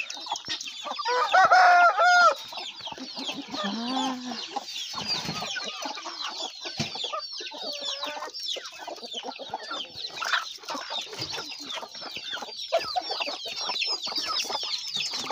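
Farmyard chickens clucking, with many chicks peeping high and fast throughout. One loud chicken call stands out about a second in.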